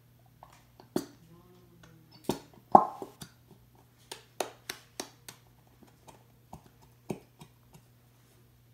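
A plastic Elmer's School Glue bottle being squeezed and slapped upside down to empty it into a bowl: irregular sharp clicks and pops, the loudest about three seconds in.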